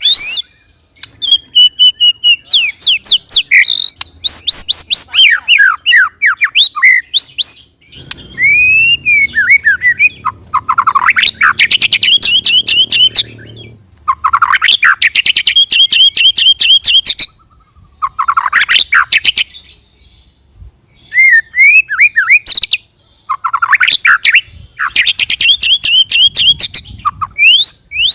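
White-rumped shama singing loud phrases of fast repeated notes, the rolling trills that bird keepers call ngerol, broken by short pauses.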